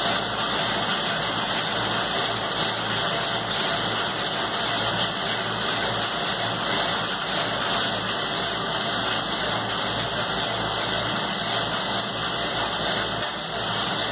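Seated exercise machine whirring steadily as its flywheel is kept spinning by continuous pumping of the handles.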